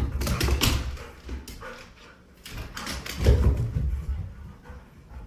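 A dog running up carpeted stairs: dull thumps that come in two bursts, about half a second in and again a little after three seconds in.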